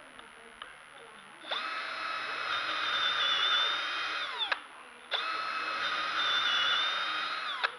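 Milwaukee M12 Fuel cordless drill running twice, about three seconds each, boring dowel holes into a wooden board through the guide bushings of a dowel jig. Each run is a steady motor whine that winds down with falling pitch when the trigger is released.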